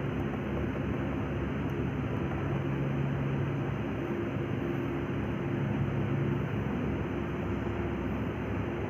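Steady mechanical hum and hiss with a low droning tone that fades a little and returns midway.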